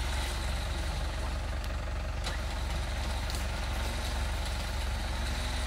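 Off-road 4x4's engine idling steadily with an even low rumble, the vehicle held stationary in deep mud ruts.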